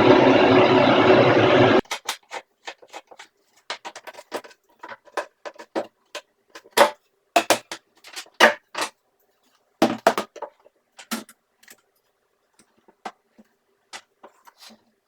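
Loud, steady running of the shop-vac dust collection and miter saw that cuts off suddenly about two seconds in. It is followed by a scattered run of light clicks and knocks that thin out near the end.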